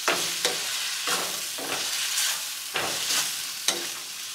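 Tortellini and grape tomatoes sizzling in a hot wok while a wooden spatula stirs them, its strokes scraping and clacking against the pan every half second or so over a steady sizzle.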